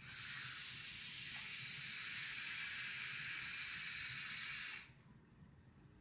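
Vape tank on a mod hissing through one long lung hit of about five seconds, with the coil firing and air drawn through the airflow, which is set wide open. The hiss stops abruptly when he releases the button.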